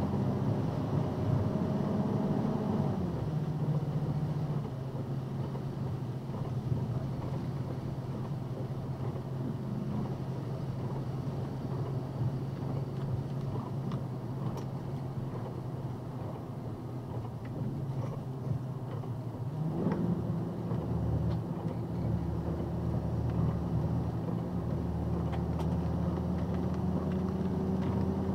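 Box truck engine and road noise heard from inside the cab while driving on a wet road at moderate speed. The engine note steps down about three seconds in and rises again about twenty seconds in, over a steady hiss of tyres on wet pavement.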